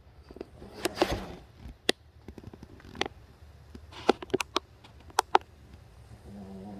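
Sleeping dog breathing, with a noisy breath about a second in and a low, pitched snore that begins near the end. Sharp clicks and ticks are scattered through and are the loudest sounds.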